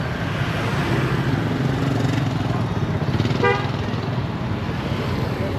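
Steady low engine rumble of road traffic, with one short vehicle horn beep about three and a half seconds in.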